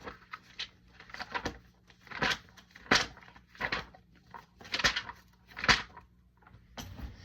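Congregation getting to its feet: a string of irregular rustles and light knocks, such as pews creaking, clothing moving and hymnal pages turning, over a faint low hum.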